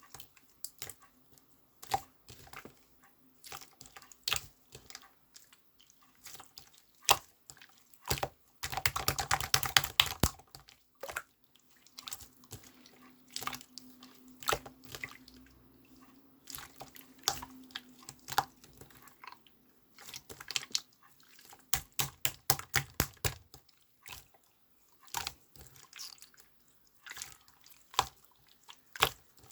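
Irregular small sharp clicks and taps, with a dense rapid flurry of clicks about nine seconds in and another quick run of clicks a little past twenty seconds.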